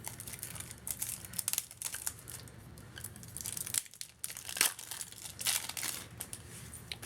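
Plastic packaging crinkling and tearing in irregular crackles as a card deck is unwrapped, with a brief pause about four seconds in.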